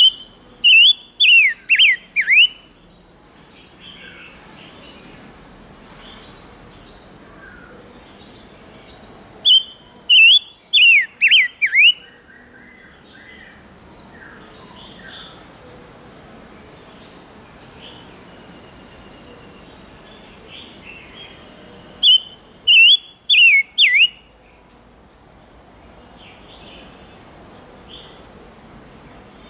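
Silver-eared mesia singing: three bursts of five or six loud, quick, swooping whistled notes, about ten seconds apart, with faint chirps in between over a steady background hiss.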